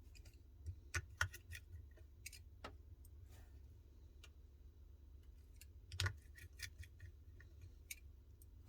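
Scattered small metallic clicks and ticks of a precision screwdriver and tiny screws being fitted back into a phone's internal brackets. The sharpest clicks come about a second in and about six seconds in.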